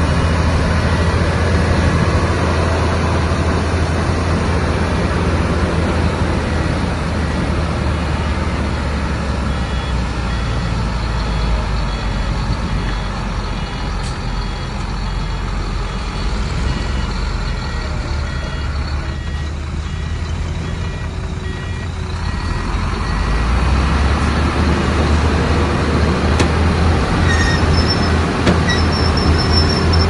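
Heavy diesel engines of a bulldozer and dump truck running steadily at work, with a reversing alarm beeping in an even rhythm through the middle stretch. The engine noise eases briefly about two-thirds of the way in, then picks up again.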